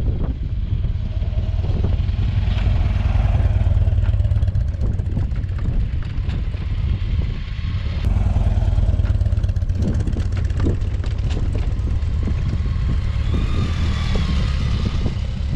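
Motorcycle engines running at low speed as a BMW sport-touring bike and another motorcycle ride slowly off over a dirt track, with a steady low rumble.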